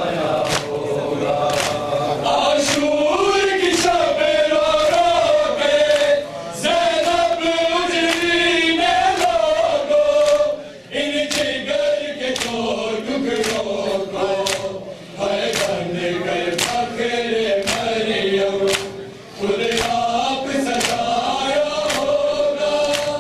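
Men chanting a noha, a mourning lament, in a slow melodic line broken by short pauses between phrases, over a steady beat of hands striking chests in matam.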